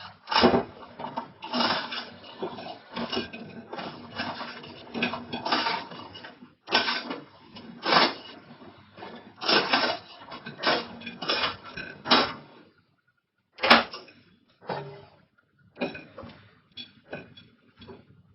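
Irregular clattering and knocking, many sharp strokes in quick runs, with a brief pause and a single sharp click a little past the middle.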